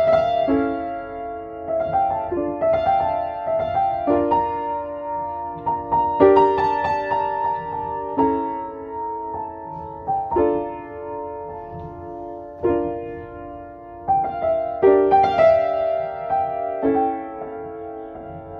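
Upright piano playing a slow, gentle solo piece in the middle register, a fresh chord struck about every two seconds and left to ring.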